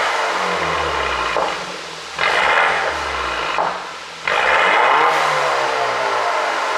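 2016 BMW 528i's turbocharged four-cylinder engine revved in repeated blips, about three in a few seconds, the revs falling away between them with a dense crackle of exhaust pops from a pop-and-bang tune.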